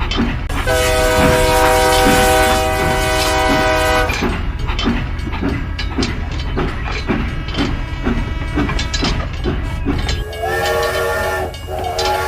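Train horn sounding a long chord, then a regular clickety-clack of wheels over rail joints, then the horn twice more near the end, over a steady low rumble.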